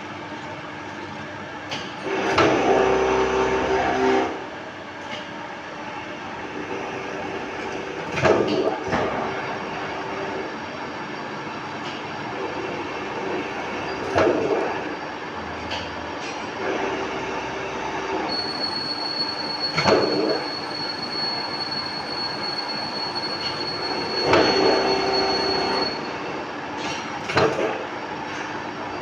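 Machine tool cutting an M8x1.25 screw thread in metal: a steady machine hum, with a squealing cut that swells six times, roughly every six seconds, the first one the longest. A thin high whistle runs through the later part.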